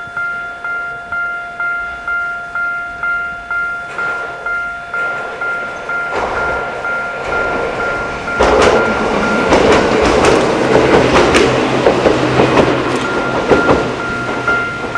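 Japanese level-crossing warning bell ringing steadily at about two strokes a second. About eight seconds in, a train passes over the crossing. Its rumble and sharp wheel clicks drown out the bell until near the end.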